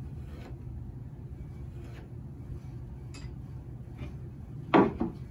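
Wooden boards handled and set down on a miter saw's table: a few light knocks, then a loud clack about three-quarters of the way in, over a steady low hum.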